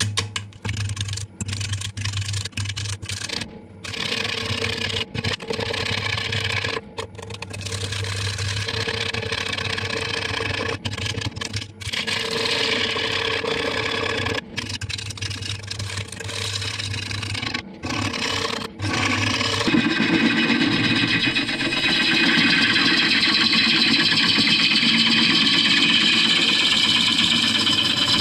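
A gouge cuts a spinning apple wood bowl blank on a Rikon wood lathe, with the lathe's motor humming underneath. For the first part the cutting noise keeps breaking off for moments. Past the middle it turns into a steady, louder, unbroken cut.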